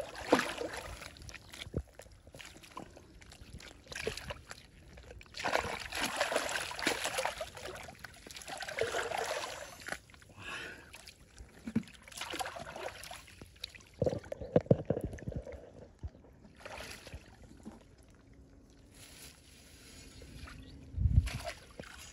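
Water splashing and sloshing in irregular bursts as someone wades and works with their hands in a stream, with a dull thump near the end.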